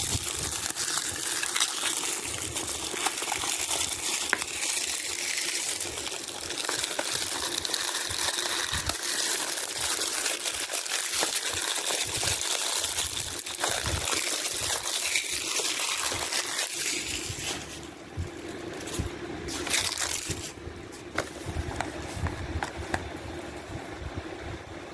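Plastic packaging crinkling and rustling as it is handled, steady for about seventeen seconds, then quieter with scattered clicks and taps.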